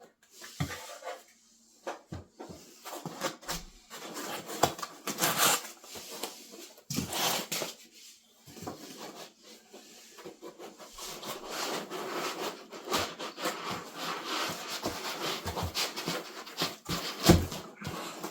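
Packaging and printer parts being handled while unboxing: irregular rustling with many knocks and clicks, the sharpest knocks near the end.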